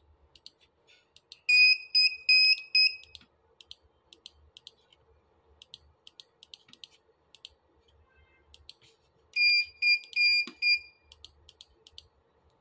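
A Dahua NVR board's buzzer sounding two bursts of four short, high beeps, one about a second and a half in and one near the end, with mouse clicks between them.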